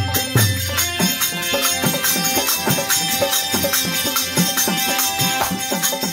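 Instrumental passage of a Fiji tambura bhajan. A harmonium holds steady chords, a dholak plays an even rhythm of strokes whose pitch bends downward, and a khanjari's jingles shimmer on top.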